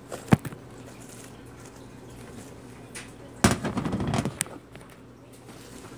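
Blue slime with small beads squeezed and stretched by hand: a single sharp snap near the start, then about a second of crackly squelching around the middle.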